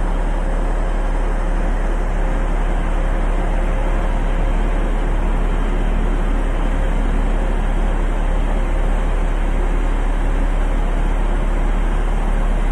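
Atlas Copco MT5020 underground mining truck's diesel engine idling: a steady drone with a deep rumble and an even hum.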